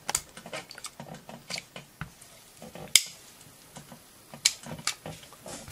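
Small plastic clicks and scrapes from a Glock 17 magazine being taken apart by hand, the floor plate being worked loose from the magazine tube. Sharp clicks stand out about three seconds in and again near the end.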